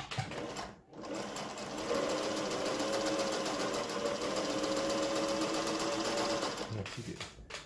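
Singer 401A Slant-O-Matic sewing machine stitching cloth with a stitch pattern cam fitted. It runs briefly, pauses for a moment, then sews steadily for about six seconds with a faint whine, slowing to a stop near the end.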